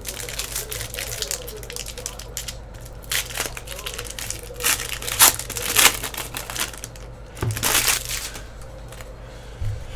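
Trading-card pack wrappers being torn open and crinkled, with cards handled: irregular crackling and rustling, with several louder rips through the middle.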